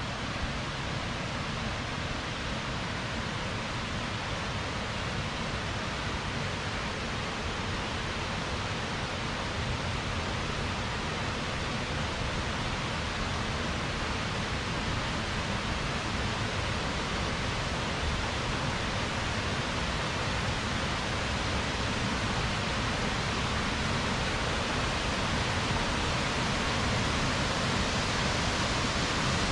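Steady rushing of a waterfall, growing gradually louder.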